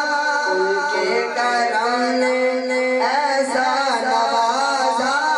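A man singing a naat, an Islamic devotional song, solo into a microphone, in long held notes that waver and turn in pitch.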